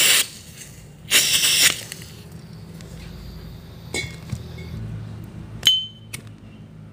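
Butane hissing from a refill can into a Dunhill Rollagas lighter's fuel insert: two short hisses, the second about a second in and lasting about half a second. Then small metal clicks and clinks as the insert is handled, one ringing briefly near the end.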